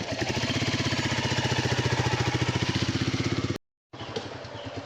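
Royal Enfield Bullet motorcycle's single-cylinder engine running steadily, with an even beat of exhaust pulses. The sound drops out completely for a moment about three and a half seconds in, then returns a little quieter.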